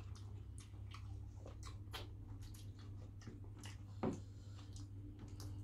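Close-miked eating sounds: scattered soft clicks and squishes as fingers tear into fish and starch and mouths chew, with one louder click about four seconds in, over a low steady hum.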